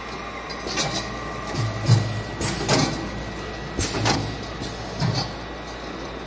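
Garlic paste filling line machinery running: a steady hum with irregular clunks and knocks, about five of them, while the hopper's ribbon agitator stirs the paste.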